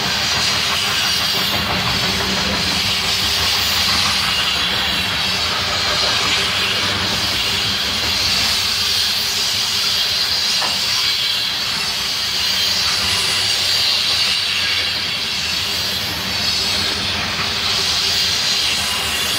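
Covered hopper cars of a freight train rolling past close by: a steady rolling noise of steel wheels on rail with a hiss.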